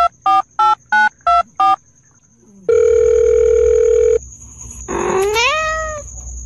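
Telephone keypad tones, about six quick beeps, as the cat's face is poked like a dial pad, then one long phone beep about a second and a half long. About five seconds in, a cat meows once, rising in pitch, like answering the call.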